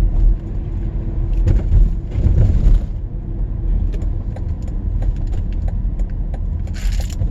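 Car being driven, heard from inside the cabin: a steady low road and engine rumble with a faint hum and a few light clicks and rattles.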